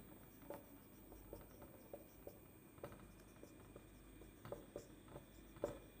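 Marker pen writing on a whiteboard: faint, irregular squeaks and taps of the pen strokes as a line of handwriting goes down.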